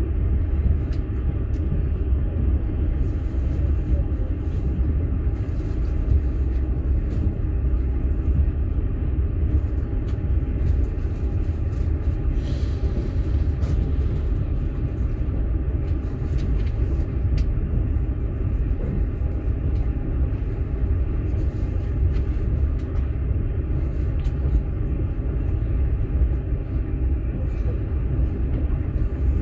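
Steady rumble of a moving passenger train heard from inside a platzkart sleeper carriage, with a few faint clicks and rattles over it.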